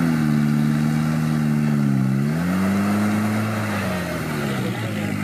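Off-road 4x4 trial vehicle's engine revving up and down as it crawls a course section: the revs drop about two seconds in, climb again, then fall away near the end.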